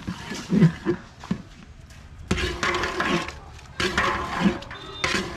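A long metal paddle stirring biryani rice in a large aluminium pot, scraping and clinking against the pot's metal, amid voices talking.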